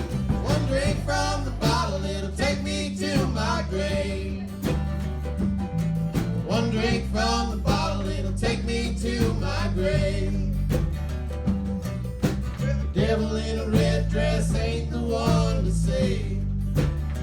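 Country song: a singing voice over plucked guitar and a steady bass line.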